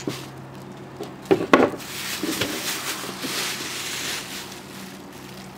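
Plastic sheeting rustling and crinkling as the skinned goat on its spit is handled on the table, with a couple of sharp knocks about a second and a half in.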